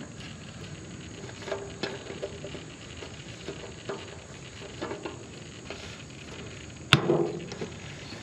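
Faint handling noises, then one sharp hollow knock about seven seconds in, as a plastic jug of nitro RC fuel is picked up and handled.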